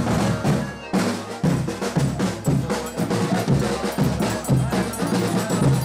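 A folia band's drums and percussion playing a chula in a dense rhythm of drum strokes with repeated low thumps.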